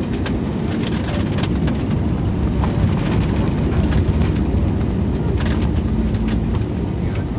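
Cabin of an Airbus A320 rolling out on the runway just after touchdown, with the spoilers up: a loud, steady low rumble of the wheels and engines, with many short rattles and clicks from the cabin fittings.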